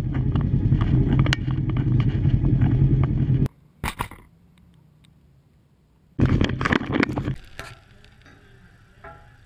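Engine of an off-road racing side-by-side running with a steady low rumble, which breaks off abruptly about a third of the way in. A single click follows, then near quiet, then a second loud burst of rumbling noise lasting about a second before faint outdoor background.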